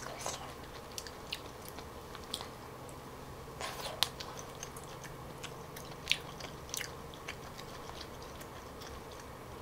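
Close-miked chewing of a mouthful of grilled asparagus with melted cheese: scattered soft wet mouth clicks, the loudest about four seconds in and another near six seconds.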